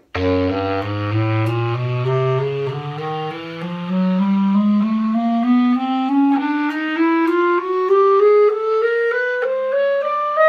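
Yamaha YCL-631 E-flat alto clarinet, a grenadilla-wood instrument, played as a chromatic scale. It starts on its lowest note, the low E-flat, and climbs steadily one semitone at a time, each note short and evenly spaced.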